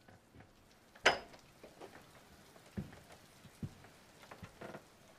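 A door clacks sharply about a second in as it is pushed open. Scattered soft knocks and small clicks follow: footsteps and a handheld device being handled.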